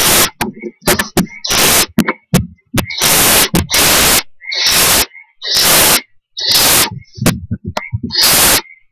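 Barn owl owlets hissing in the nest box: a run of harsh hisses, each up to about a second long and coming about once a second, with a few short clicks between.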